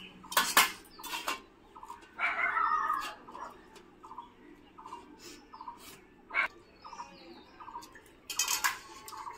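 Short high chirps repeat about twice a second over the quieter sounds of people eating rice with their hands from steel plates. Near the end come a few louder gulping sounds as water is drunk straight from a plastic bottle.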